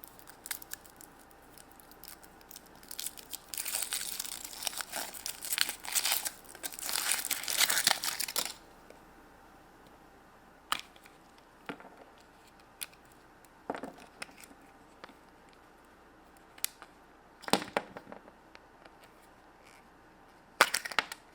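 Foil wrapper of a chocolate surprise egg being torn and peeled off, crinkling for about five seconds, followed by a few scattered clicks and light taps as the egg is handled.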